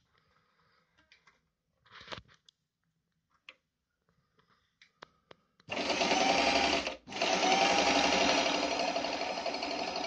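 Pfaff 294 sewing machine: a few light clicks, then about six seconds in it starts stitching at speed, stops for an instant, and runs on steadily.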